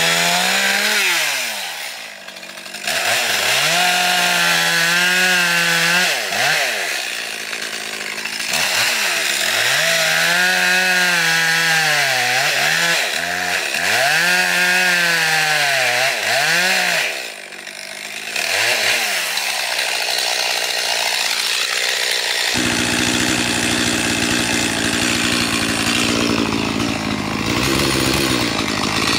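A chainsaw cutting wood at high revs, its pitch repeatedly sagging under load and climbing back. The throttle drops off briefly twice. About three-quarters of the way in, the sound changes abruptly to a rougher, steadier saw noise.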